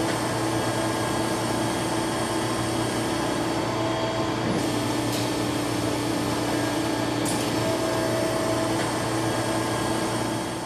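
Steady hum of running machinery, with a faint higher tone that comes and goes a few times.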